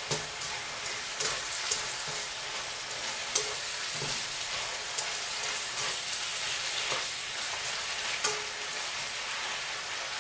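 Pieces of ribeye steak sizzling in a hot frying pan, a steady frying hiss, with sharp clicks and scrapes of the utensil against the pan several times as the meat is stirred.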